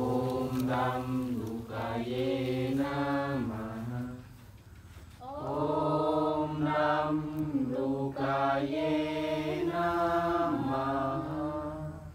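Slow, melodic Sanskrit mantra chanting in two long sung phrases, with a short break about four seconds in.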